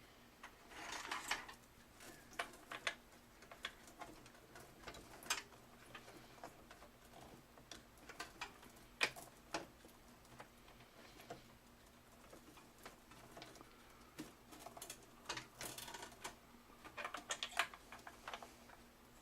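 Irregular clicks, taps and short bursts of rustling as power cables and plastic connectors are handled and plugged into drives inside a computer case.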